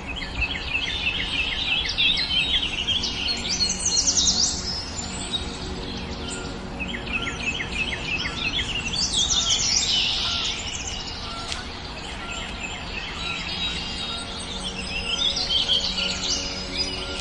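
Small birds chirping and singing: quick, high repeated notes and trills that come in three spells, over a steady low background.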